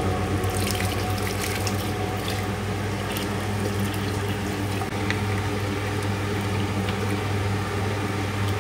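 Water poured from a bowl into an aluminium pressure cooker of chicken gravy, a steady splashing pour, with a steady low hum underneath.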